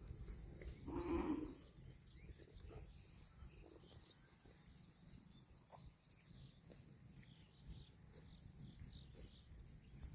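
A cow gives one short moo about a second in, then only faint rustling and low background rumble.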